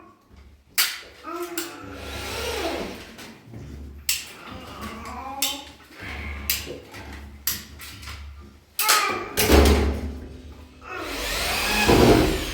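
Handheld power tool running in several short bursts, the longest near the end, with sharp knocks between them, as kitchen cabinets are installed.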